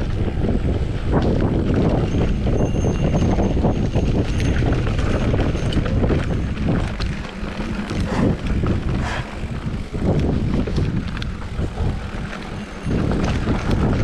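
Wind noise on the microphone of a mountain bike on the move, with frequent clicks and knocks from the bike rattling over rough, wet trail. It eases for a few seconds in the second half, then picks up again near the end.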